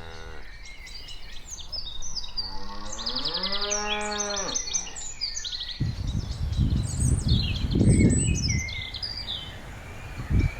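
A cow mooing: one long moo about two and a half seconds in that rises in pitch, with birds chirping throughout. A low rumbling noise follows for a few seconds near the end.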